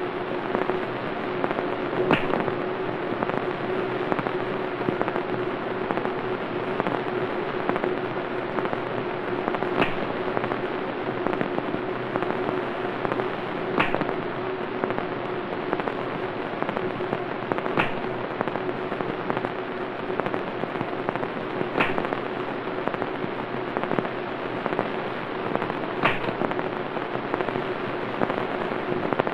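Dense, steady crackling hiss with a constant low hum under it, broken by a sharp click about every four seconds.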